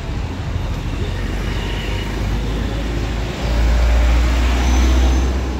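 Street traffic going by, a steady wash of road noise, with a louder low rumble for about two seconds starting a little past halfway through.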